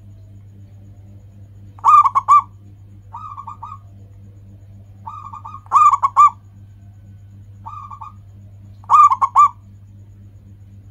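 Zebra dove (perkutut) cooing: three loud phrases of a few rapid, bubbling notes, with softer, shorter phrases between them, over a steady low hum.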